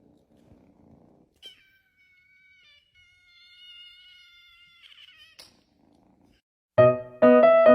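A cat's single long, drawn-out meow lasting about four seconds, after a faint low rumble. Near the end, loud piano music comes in.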